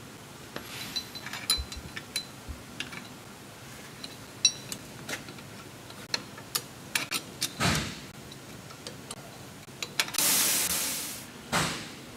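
Scattered small metal clicks and taps from hands fitting the outside bearing retainer onto a car's rear axle hub. Near the end a louder rush of noise lasts about a second and a half.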